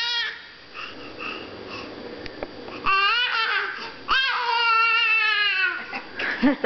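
A baby babbling in long, high-pitched squeals. One ends just at the start, then two drawn-out ones come about three and four seconds in, the second held for over a second and a half and dropping in pitch at its end.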